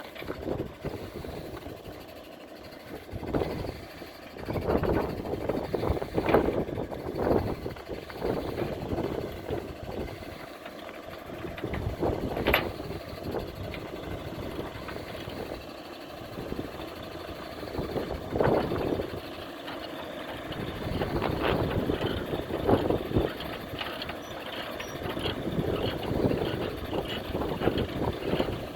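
Truck engine running, its noise rising and falling unevenly with several louder surges.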